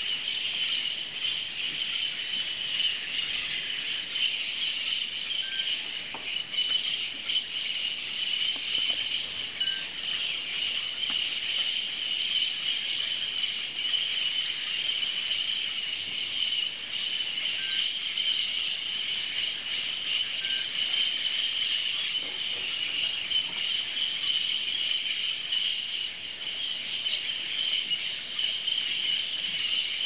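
A large flock of parakeets chattering continuously, many high-pitched calls merging into one unbroken wall of sound.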